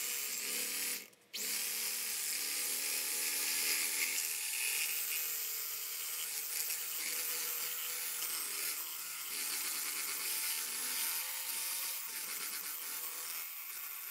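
Hamilton Beach electric hand mixer running steadily, its twin beaters whisking eggs and cream cheese in a ceramic bowl: a steady motor whine that cuts out briefly about a second in.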